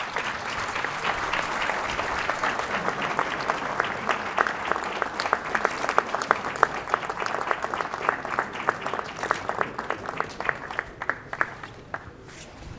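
Audience applauding, a dense patter of hand claps that thins to scattered claps and fades near the end.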